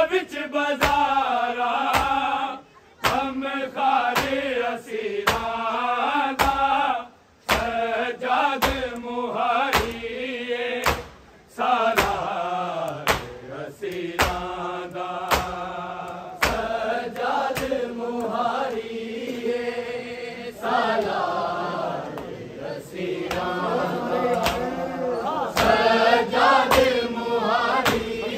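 Group of men chanting a noha, a Shia mourning lament, in sung phrases with short breaks between lines. Regular sharp strikes keep the beat throughout, typical of matam: hands beaten on the chest.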